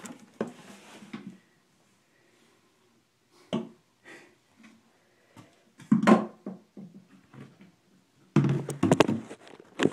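Clear plastic container knocking and scraping on a bathroom floor as it is brought down to trap a chipmunk: a few scattered thunks, then a louder clatter lasting almost a second near the end.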